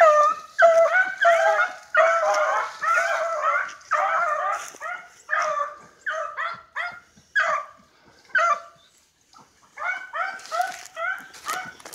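Beagles baying over and over, drawn-out hound calls with a pitch that bends, with a short pause about nine seconds in before they start again.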